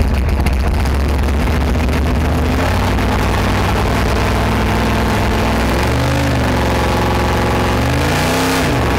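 Engine running steadily, heard from inside the Sherp ATV's cab, with an engine revved up and back down twice, about six and eight and a half seconds in.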